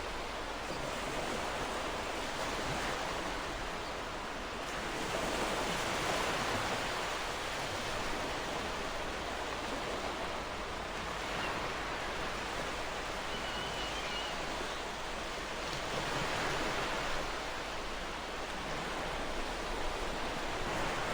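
Ocean surf washing onto a shore: a steady rush of waves that swells and eases every several seconds.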